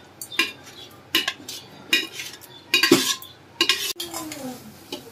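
Metal spoon clinking and scraping against the rim and sides of a large metal cooking pot as rice is spooned in for a biryani layer: irregular sharp knocks with short ringing, the loudest cluster about three seconds in.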